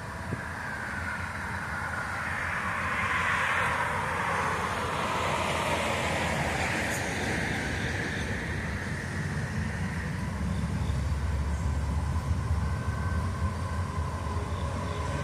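Freight train approaching from a distance, led by an EMD SD40-2 diesel-electric locomotive. A broad rushing noise swells and fades in the first half, then a low diesel rumble builds as the train draws nearer.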